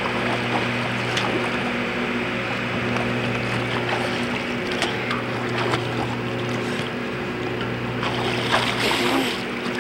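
Swimmers splashing and paddling in lake water, with a steady low mechanical hum underneath; the splashing grows louder and hissier about eight seconds in.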